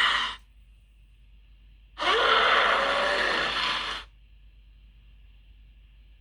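Kaiju creature sound effect: a noisy, breath-like call of about two seconds starting about two seconds in, with a short rising tone at its start. The tail of a similar call ends just after the beginning.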